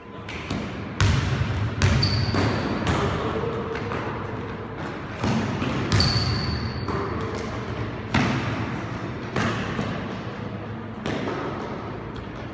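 A basketball bouncing and being caught on a hard sports-hall floor, about eight irregular thuds that echo through the hall. Two short, high sneaker squeaks on the floor, about two and six seconds in.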